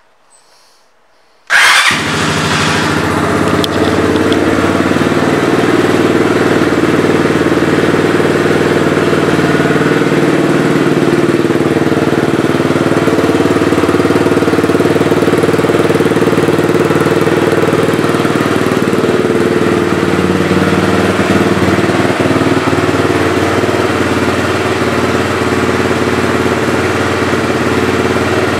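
SSR SR150 pit bike's single-cylinder four-stroke engine starting abruptly about a second and a half in, then idling steadily.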